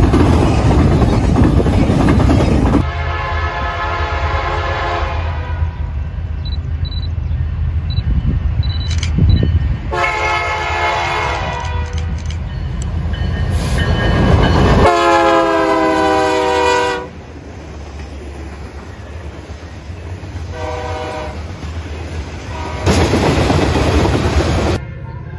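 Freight train cars rolling past close by with loud wheel-on-rail noise, then a BNSF diesel locomotive's air horn sounding several long chord blasts as the train approaches, the third the loudest and a short one after it. Tank cars rolling past loudly near the end.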